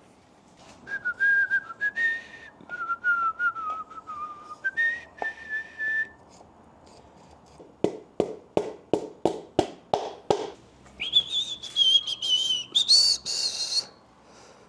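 A man whistling a tune, then about eight quick sharp taps of a hammer driving a piston down through a ring compressor into the bore of a Ford 302 block, then more whistling at a higher pitch.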